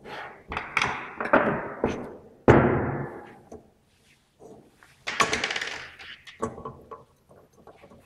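Metal waveguide sections knocking and clanking as a matched termination is handled and fitted onto an isolator port. A quick series of knocks, the loudest about two and a half seconds in, then a second of scraping rattle about five seconds in.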